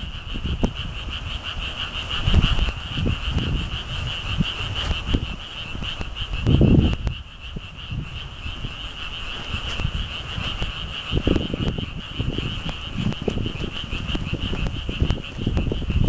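A chorus of frogs calling in a steady, fast trill, with strong wind gusting against the microphone in irregular low rumbles, the loudest gust about six and a half seconds in.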